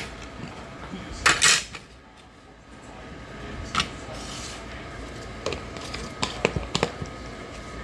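Kitchenware being handled: a short scraping rustle about a second in, then a run of light clicks and clinks near the end.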